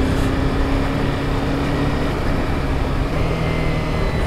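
Honda sport motorcycle's engine running while riding, heard under steady wind rush on the helmet-level microphone. The engine note drops lower about halfway through.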